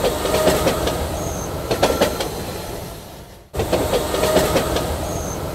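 Rumbling, rattling noise with irregular sharp clacks and a brief high squeal. It fades down about three seconds in, then cuts back in abruptly and the same stretch plays again.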